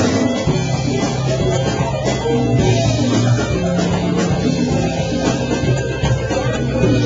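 A live band playing: electric guitar, keyboards and drum kit, with sustained low notes under the music.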